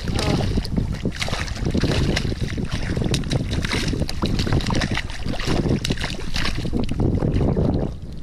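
A hooked cobia thrashing and splashing at the water's surface beside a kayak, with wind buffeting the microphone. The splashing dies down near the end.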